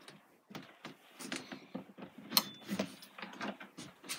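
A caravan's wooden bathroom door being opened by its lever handle: a run of light clicks and knocks from the latch and door, the sharpest about halfway through.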